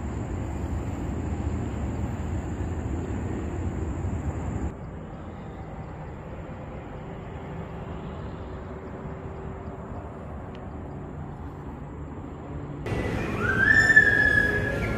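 Steady outdoor ambience of distant road traffic, a low even hum, with a thin high steady tone for the first few seconds. The hum drops abruptly to a quieter drone about a third of the way in. Near the end it switches to a busier indoor ambience with clatter and a short rising tone, the loudest moment.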